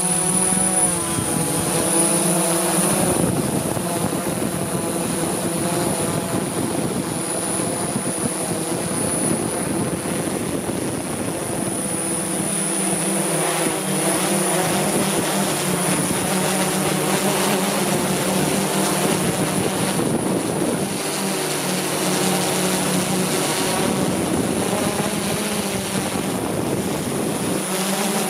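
Rotor aircraft (a chopper) in flight, its rotors giving a steady drone with a constant high whine on top and a hum whose pitch wavers slightly as it manoeuvres.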